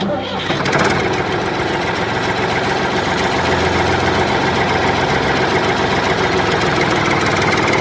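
Steady engine-like running sound as the green toy tractor pulls its trailer across sand, starting abruptly and holding even throughout.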